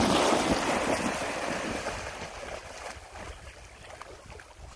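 Two dogs splashing through shallow lake water as they charge after a thrown ball, loud at first and fading over the first couple of seconds as they start to swim. Wind buffets the microphone throughout.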